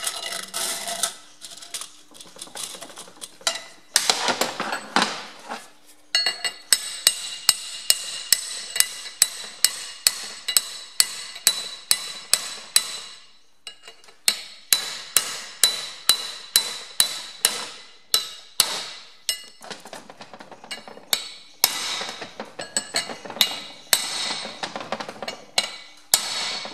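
Hammer tapping on steel, driving a heated bearing down onto its seat on a Ferguson TE20 rear axle half shaft. The sharp, ringing metallic taps come about three a second in three runs, with short pauses between them. The bearing is a little tight and will not drop straight into place.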